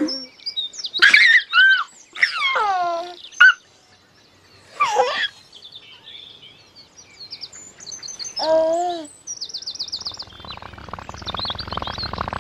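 A baby cooing and giggling in several short bursts, some sliding down in pitch, over small high bird chirps and tweets. About ten seconds in, a low buzzing musical drone starts.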